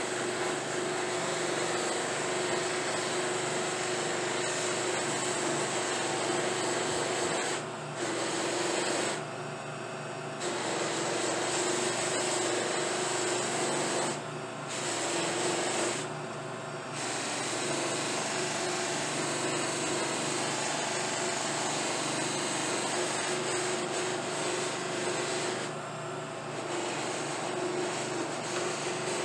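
Buffing machine running steadily with a constant hum, its spinning felt wheels hissing as they buff the dyed finish of a briar pipe. The hiss drops out briefly several times while the hum carries on.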